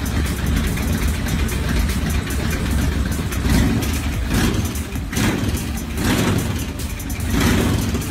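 Carberry Double Barrel 1000 V-twin engine, built from two Royal Enfield 500cc cylinders on a new crankcase, running on a test stand. It idles steadily, then from about halfway in the throttle is blipped repeatedly, about once a second, each blip a short rise in revs.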